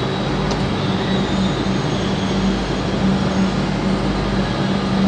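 Comeng electric multiple-unit train pulling slowly out along the platform: a steady low hum with a faint high whine above it.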